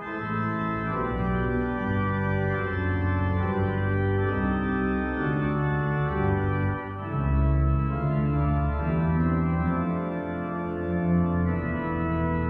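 Church pipe organ playing slow, held chords over deep bass notes, the harmony changing every second or so.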